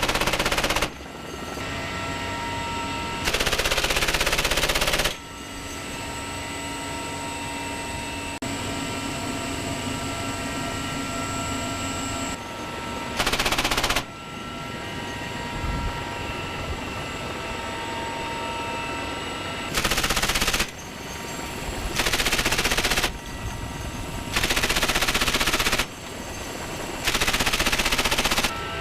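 Bursts of machine-gun fire from a CH-53E Super Stallion's door-mounted gun: seven bursts of one to two seconds each, several seconds apart, with the helicopter's steady turbine whine heard between them.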